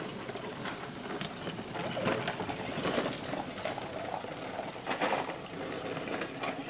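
Hard plastic wheels of low-slung Big Wheel-style tricycles rumbling and rattling over asphalt as children pedal past, growing louder about two seconds in and again near five seconds.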